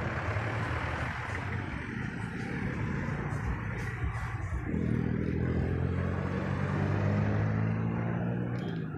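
Road traffic of cars, jeepneys and motorcycles heard from a bicycle riding among them. About halfway through, a nearby vehicle's engine drones at a steady pitch, stopping just before the end.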